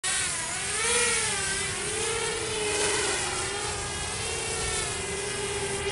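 Walkera F210 racing quadcopter's brushless motors and propellers whining in flight, the pitch rising and falling with the throttle. Loudest about a second in, as it passes close overhead.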